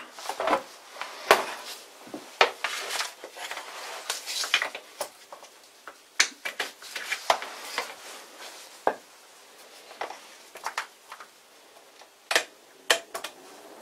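Scattered knocks, clatter and rustling from objects being handled and set down on a wooden workbench while a fan heater is put in place. About twelve seconds in come a few sharp clicks as the fan heater's control knob is turned.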